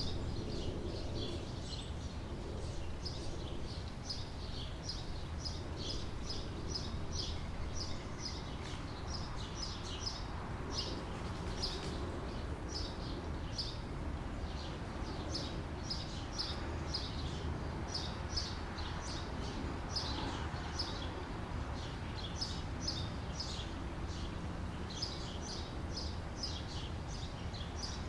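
Outdoor summer ambience: a steady low background rumble and hiss with many small birds chirping in quick, repeated short notes.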